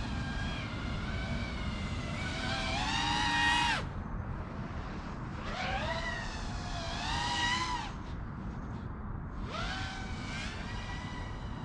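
Emax Eco II 2306 2400kv brushless motors on an FPV freestyle quadcopter whining through three throttle punches, each rising in pitch and then cut off suddenly, over a steady low rumble.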